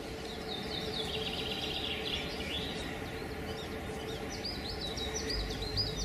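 Birds chirping in quick, repeated trilling phrases over a faint steady hum. A low musical bass comes in near the end.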